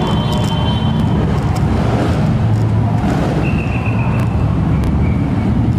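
Steady low rumble of motor vehicles running on the street, heavy traffic noise.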